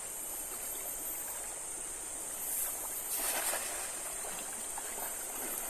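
River water running steadily, with two brief louder surges about two and a half and three and a half seconds in.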